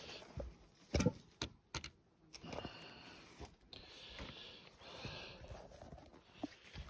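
Footsteps and knocks on the weathered wooden stairs of a fire lookout tower: a few sharp knocks about a second in, then a soft hiss while steps shuffle across the wooden landing.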